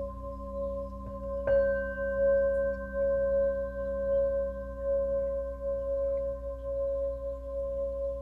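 Singing bowl tones ringing in a steady drone, struck once more about a second and a half in, which brightens the ring.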